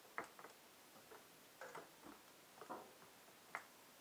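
Faint, scattered clicks and light metal taps from a locking-pliers-style oil filter wrench being handled and adjusted, close to silence between them.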